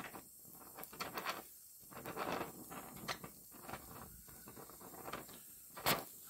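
Oxy-acetylene torch welding a steel car trunk lid seam with filler rod: irregular crackling and spitting from the weld puddle, with one sharp pop near the end.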